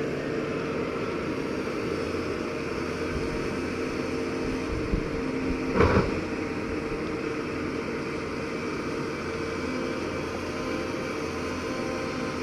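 Heavy earthmoving machine's diesel engine running steadily, with a steady tone over the hum and a brief clunk about six seconds in.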